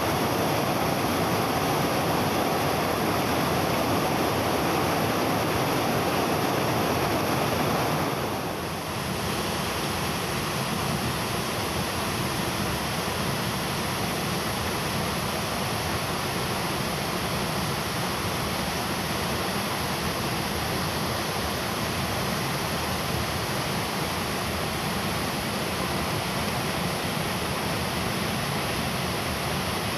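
Waterfall rushing heavily: a steady, dense wash of falling water. About eight seconds in, the sound changes abruptly to a slightly quieter, lower rush that then holds steady.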